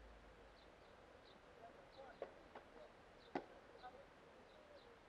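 Faint birdsong of short, high, repeated chirps. About two seconds in come three sharp knocks of a tennis ball, struck by rackets and bouncing on the hard court; the last knock is the loudest.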